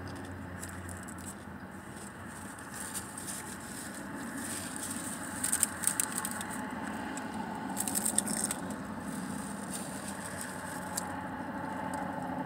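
Crunching and crinkling while eating a taco from a paper wrapper, in short crackly clusters about five and a half and eight seconds in, over a steady background hiss.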